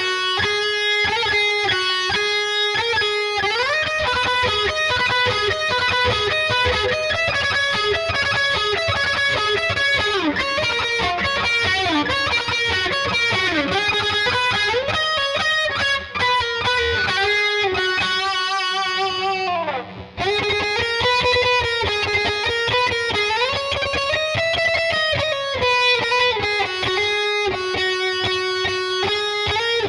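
Electric guitar lead playing on a 2008 Gibson SG Standard fitted with a Seymour Duncan Phat Cat neck pickup: held notes with string bends and vibrato between fast runs. About twenty seconds in, a long slide down the neck and a short break.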